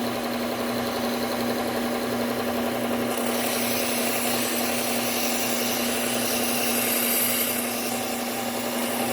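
Bucktool low-speed belt sander running with a steady motor hum while its Cubitron 120 abrasive belt grinds the steel of a chef's knife tip to reprofile it. The grinding hiss grows stronger about three seconds in.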